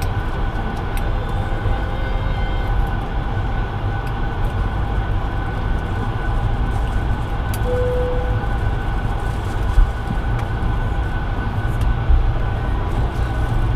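Steady cabin noise inside a Bombardier CS100 airliner on the ground before takeoff: a low rumble with two steady whining tones, and a few faint clicks and knocks.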